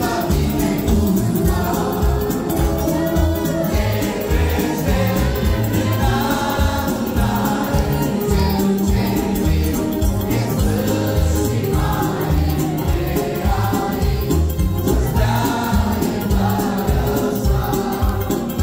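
Male vocal group singing a church song in harmony into microphones, accompanied by accordions and keyboard over a steady low beat, amplified through PA speakers.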